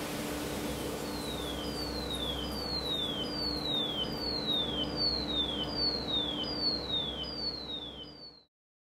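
An underwater speaker in a water tank playing a repeated falling tone sweep, a little more than one a second, each glide dropping in pitch. The sweeps grow louder as the curtain of air bubbles around the speaker clears, since the bubbles were damping the sound. A steady low hum runs underneath, and everything cuts off suddenly near the end.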